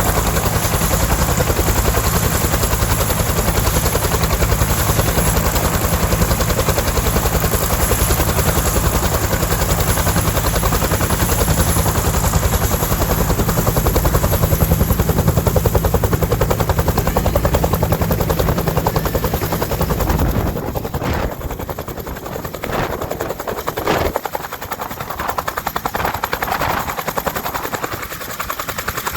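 Bell UH-1D Huey helicopter running, its two-blade main rotor giving a rapid blade slap over the high whine of its Lycoming T53 turboshaft. About twenty seconds in the low slap falls away, and the sound becomes quieter and more uneven.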